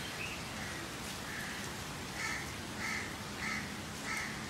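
A crow cawing repeatedly: a few faint calls, then four louder caws in the second half about six-tenths of a second apart, over a low steady background hiss.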